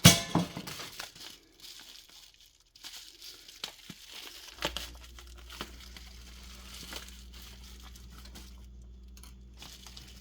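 Plastic parts packaging crinkling and rustling as it is handled and opened, with a sharp crackle at the start. About halfway in the rustling stops, leaving a faint steady low hum and a few small clicks.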